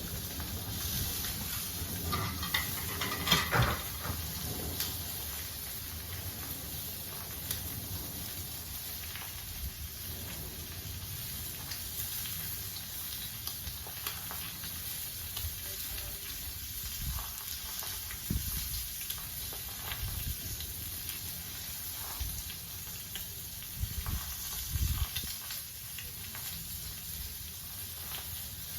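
Breakfast food frying on a Blackstone flat-top griddle: a steady sizzling hiss, with occasional short knocks.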